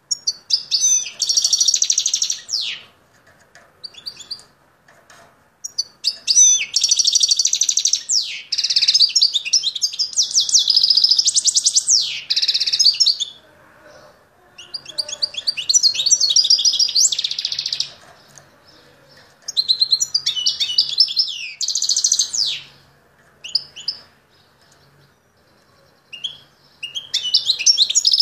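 Caged songbird singing in bouts of rapid, high twittering song, each a few seconds long, with short pauses between them.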